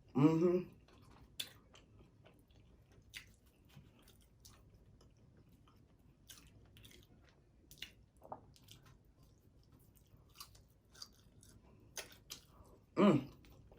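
Close-up chewing of french fries: wet mouth clicks and smacks at an irregular pace, with a short vocal sound right at the start and another near the end.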